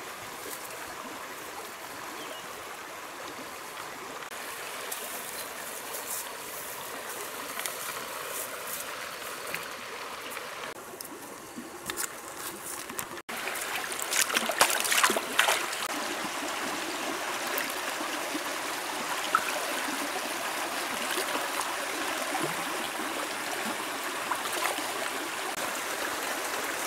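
Shallow stream running steadily. Just past halfway, bare feet splash through the water several times as someone wades in.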